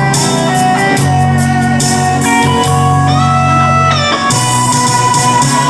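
Instrumental introduction of a song: a guitar-like lead melody of held notes over a steady bass line, before the vocals come in.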